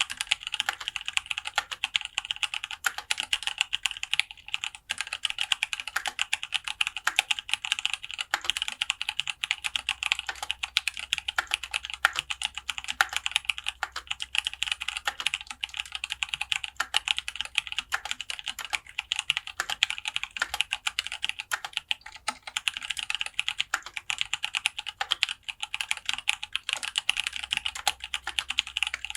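Full-aluminium mechanical keyboard with lubed Zealios 62 g tactile switches being typed on quickly and continuously, a dense run of keystroke clacks with no pauses.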